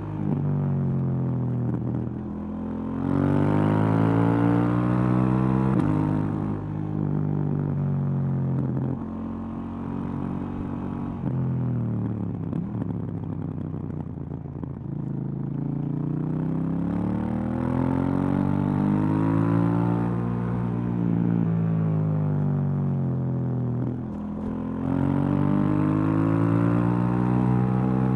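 2018 KTM 790 Duke's parallel-twin engine with stock exhaust, heard while riding: its pitch climbs and falls repeatedly as the rider accelerates, shifts and rolls off. There is a jump to a louder pull about three seconds in, a quieter stretch about midway, and another loud pull near the end.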